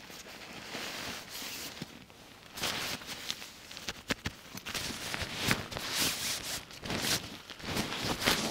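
Irregular rustling and scuffing of someone moving about and handling camping gear, in uneven bursts that grow louder and busier from a few seconds in.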